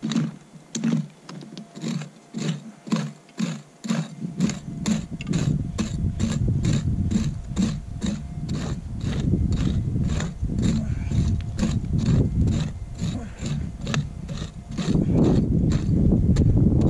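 Small steel prospecting pick chopping and scraping into hard, stony soil to dig out a detector target, at about three strikes a second. Wind rumbles on the microphone from about four seconds in.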